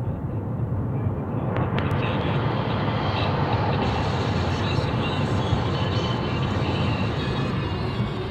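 Road and engine noise inside a moving car's cabin: a steady low rumble, with two faint clicks about a second and a half in.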